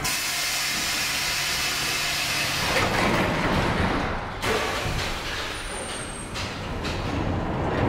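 Metro train at the platform: a loud pneumatic hiss of air as the doors close, cutting off sharply after about four seconds. The train's rumble follows, with a brief high squeal about six seconds in.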